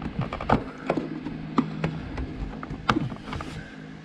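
Sharp plastic clicks and knocks, about five spread over a few seconds, as push-in trim clips on a Jeep's plastic cowl panel are popped and handled.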